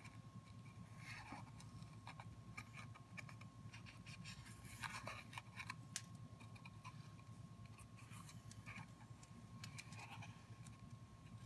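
Faint scratching of a graphite pencil on paper as it traces around a cardboard toilet paper roll, with small irregular ticks, over a faint steady tone.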